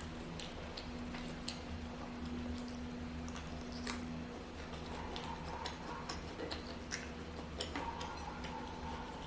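Close-up eating sounds of sticky eight-treasure rice being chewed: scattered soft clicks and smacks at an irregular pace, over a steady low electrical hum.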